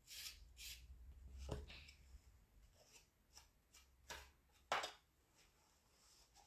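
Faint rubbing and rustling of hands working soft clay, with two light taps a little past the middle.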